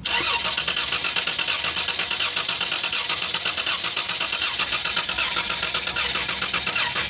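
Dodge Caravan's 3.6-litre V6 running steadily with a fast, even ticking over the engine noise. The engine has a cylinder 4 misfire that the mechanic traces to a worn, no-longer-smooth valvetrain part under the valve cover.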